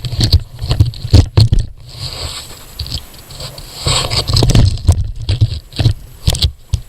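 Nails being levered out of pallet boards with a hand nail puller: a run of sharp metal-on-wood knocks and clicks, with a longer scraping stretch about two to five seconds in as a nail is rolled out of the wood.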